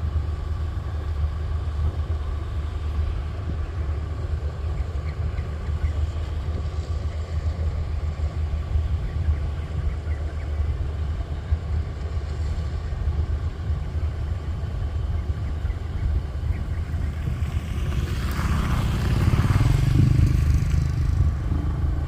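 Kubota rice combine harvester's diesel engine running steadily under load, a deep drone with a thin steady whine over it. A louder rushing noise swells for a few seconds near the end.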